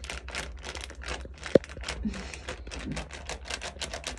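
Plastic cake-mix packet crinkling in quick, irregular crackles as it is shaken and its powder poured into a ceramic bowl. One sharp knock stands out about a second and a half in.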